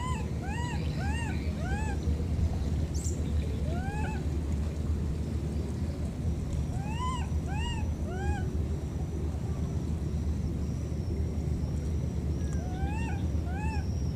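Baby macaque crying: short squealing calls that rise and fall in pitch, coming in runs of three or four with pauses between, over a steady low rumble.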